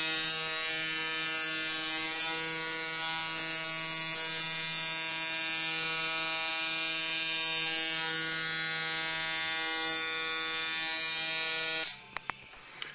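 Rebuilt Haunstrup coil tattoo machine set up as a liner, with new coils and springs, buzzing steadily at about 160 strokes a second on 8.5 volts and 50% duty cycle. It runs evenly, as its owner expected, then cuts off suddenly near the end.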